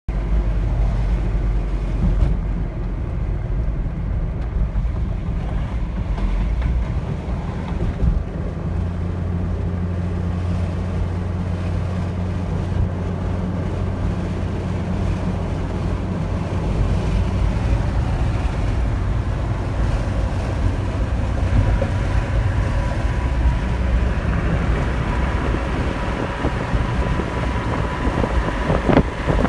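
Car interior noise while driving at highway speed: a steady low rumble of tyres and engine with wind noise. A faint steady whine joins in during the last third.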